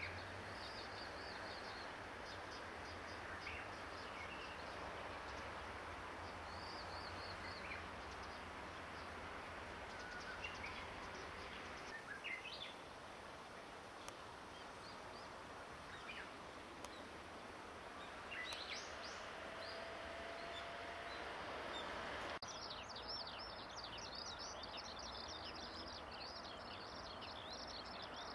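Scattered short bird calls over a steady outdoor background hiss; from about two-thirds of the way in, a continuous, fast, high twittering song, that of a Eurasian skylark.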